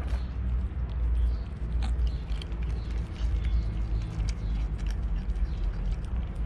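Cats chewing pieces of grilled fish, with many small irregular clicks and crunches, over a steady low rumble.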